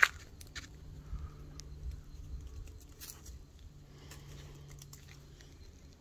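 Footsteps crunching on a dry dirt trail littered with leaves, with scattered light clicks and one sharp click right at the start.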